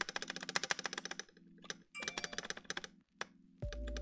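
Mechanical keyboard keys pressed in rapid runs of clicks, a short pause between them, as the freshly lubed switches and stabilizers are sound-tested. Near the end, music with a steady low bass comes in.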